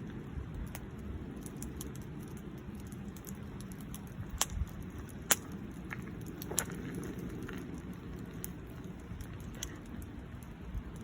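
Wood fire crackling, with a few sharp pops in the middle over a steady low rumble.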